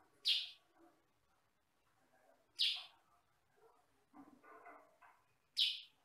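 Caged kutilang sutra, a yellow-and-black bulbul, giving three short, sharp, high calls a few seconds apart. Softer, lower chatter comes between the second and third calls.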